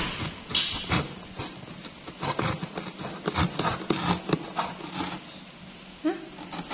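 Pieces of a toy parking-garage playset being handled and fitted together, with irregular clicks, taps and scrapes.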